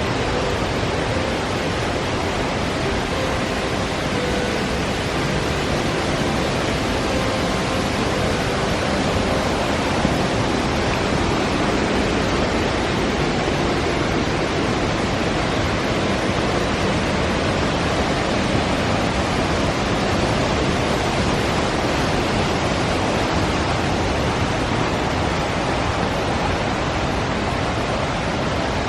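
Steady rushing of a mountain valley stream.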